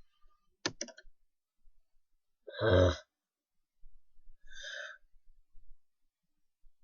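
A few quick clicks, then a loud sigh, followed a couple of seconds later by a shorter breathy sound.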